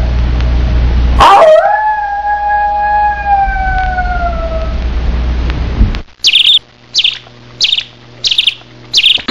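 An animal howling: long held howls that fall slowly in pitch, a new one starting about a second in. About six seconds in this gives way to five short high chirps, about two-thirds of a second apart.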